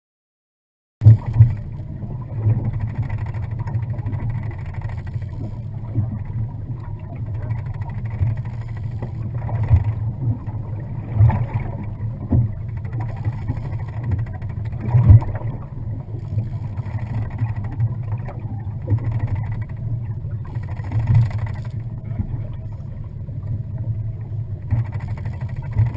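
Boat motor running steadily with a low hum, starting about a second in, with occasional louder thumps over it.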